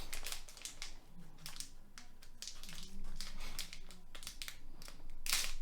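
Plastic trading-card pack wrapper crinkling and crackling as it is handled and slit open with a knife: a string of short irregular crackles, with a sharper, louder one near the end.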